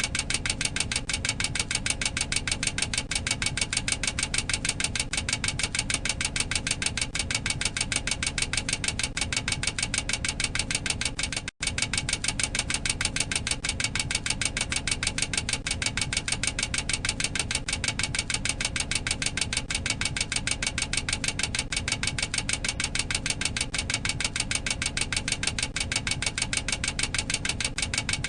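Boeing 737-800 cockpit overspeed warning clacker sounding continuously: a rapid, even clacking, about eight to ten clacks a second. It breaks off for an instant about eleven seconds in. The clacker warns that the aircraft has exceeded its maximum operating speed.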